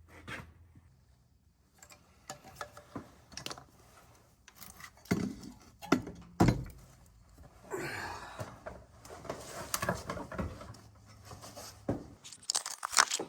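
Metal clanks, knocks and scrapes as the turbocharger is worked loose and pulled out of an LLY Duramax engine bay, with a few sharper knocks midway and a short scraping stretch.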